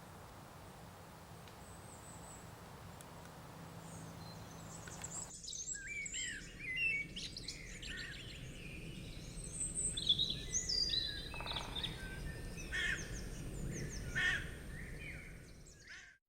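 Faint steady background noise, then about five seconds in a dense chorus of small birds chirping and calling starts abruptly, many quick high, gliding notes overlapping, and cuts off suddenly near the end.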